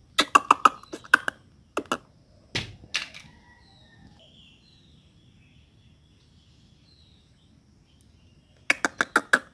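A squirrel's sharp chattering call: a quick run of chips, about six a second, at the start, a few more over the next two seconds, and another run near the end. A dull thump comes about two and a half seconds in, with faint bird chirps behind.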